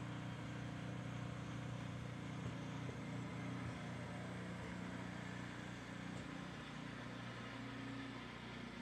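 Walk-behind snowblower's engine running steadily at an even speed, a low continuous hum heard through a window.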